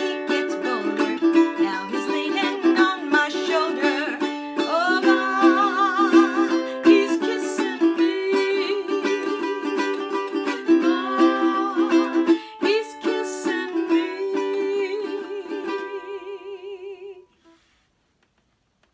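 A woman singing a 1920s popular song with vibrato, accompanying herself on a strummed ukulele. She ends on a long held note, and the music stops about a second and a half before the end.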